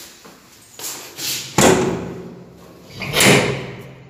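Black steel door's sliding tower bolts being drawn back and the metal door opened, with metallic knocks and clatters: a sharp bang about one and a half seconds in and a second, longer clatter about three seconds in.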